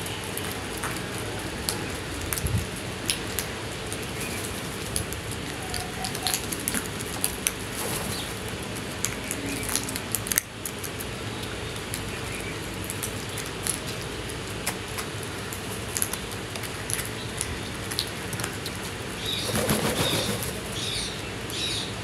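House crows feeding: frequent short sharp taps of beaks pecking grain on concrete and a clay bowl, mixed with wing flaps as birds hop and jostle. A denser, louder flurry of flapping comes near the end.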